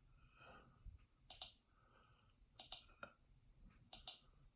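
Faint clicks of a computer mouse, several coming in quick pairs about a second apart, against near silence.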